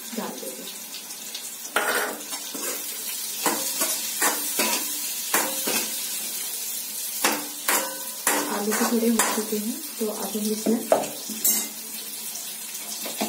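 Metal spoon stirring and scraping vegetables in a steel pan on a gas stove, with many sharp clinks of spoon against metal, over the sizzle of frying.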